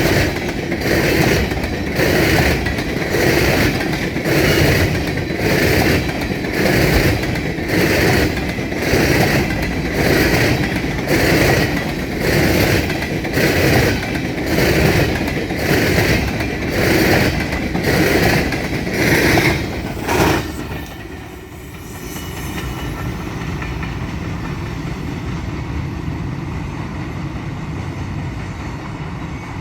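Empty coal train hopper cars rolling past, their wheels clacking over rail joints in a steady rhythm a little more than once a second. About 20 seconds in the last car clears and the clacking stops, leaving a steady rumble.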